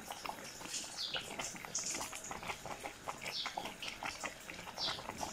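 Thick milk-and-vermicelli kheer boiling in a metal pot, bubbling with many small pops and plops; the sound cuts off suddenly at the end.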